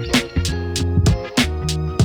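Background music with a steady hip hop beat: drum hits about twice a second over a held bass line.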